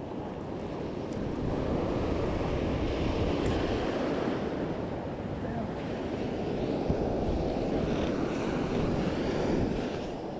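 Ocean surf breaking and washing up the beach, with wind buffeting the microphone. The wash swells louder about two seconds in and eases off near the end.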